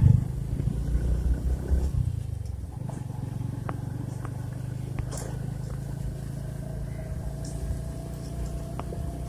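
Motorcycle engine running steadily. It is louder for the first two seconds, then settles to an even low drone, with a few faint clicks.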